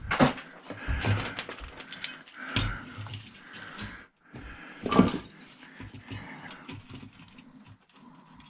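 Scattered knocks and clatters of loose scrap parts being handled and tossed into a pile, the loudest about five seconds in, with faint rustling between.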